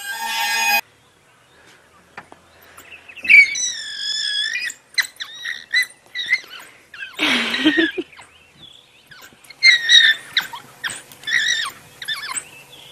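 African wild dogs squealing in several high-pitched bursts over a carcass, with a lower cry midway. This is submissive begging for food, behaviour that stems from puppyhood.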